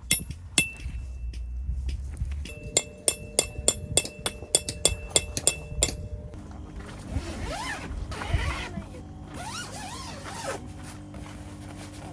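Background music: a light, evenly ticking rhythm of plucked or struck notes for about six seconds, then held tones with gliding sounds over them.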